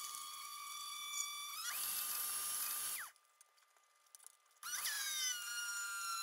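Countertop blender motor straining through a very thick frozen protein ice cream mix. Its whine rises in pitch and cuts off about three seconds in. After a short pause with a few faint clicks it starts again, and its pitch sags as the motor bogs down in the thick mix.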